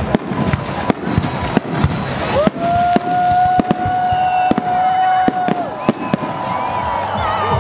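Fireworks display: aerial shells bursting in a rapid string of sharp bangs and crackles. About two and a half seconds in, a loud high note rises and holds for about three seconds over the bursts.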